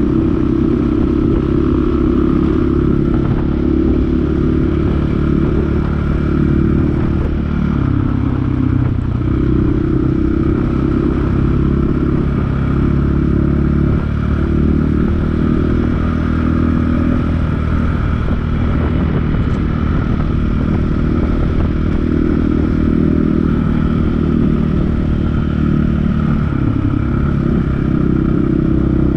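A dual-sport motorcycle's engine running steadily under way, heard from on the bike itself. The engine note shifts a little now and then, over the clatter of riding on a gravel road.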